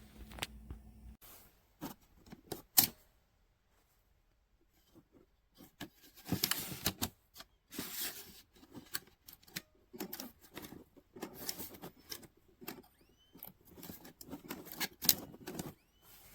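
Irregular clicks, taps and rustling, as of small objects being handled. There are two sharp clicks about two and three seconds in, a short quiet spell, then a busy stretch of clicking and rustling to the end.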